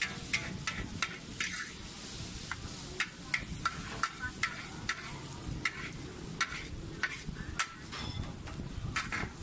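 Metal spatula scraping and clanking against a wok as char koay teow noodles are stir-fried, with sharp strokes coming irregularly about twice a second over a steady frying sizzle.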